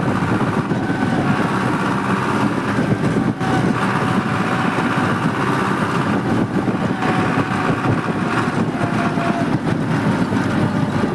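Powertrac tractor's diesel engine running steadily under way on a paved road.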